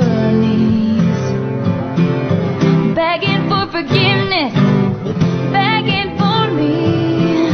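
Background music: a country-pop song with acoustic guitar.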